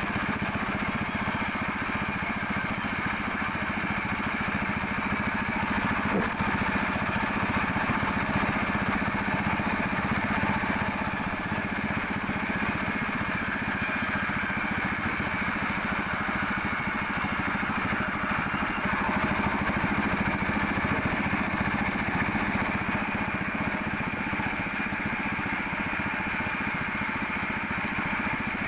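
Sawmill machinery running steadily: a continuous engine-like drone with a low hum and a fast, even pulse, swelling slightly in loudness now and then.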